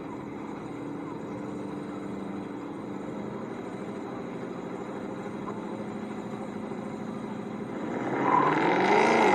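Two V8 drag cars, a Ford Mustang GT and a supercharged Mercedes-Benz E55 AMG, idling steadily on the start line; about eight seconds in the engines rev up and get louder as they launch.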